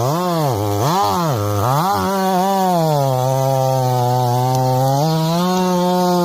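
Chainsaw engine running, its pitch swinging up and down about twice a second at first, then holding steady and stepping higher about five seconds in.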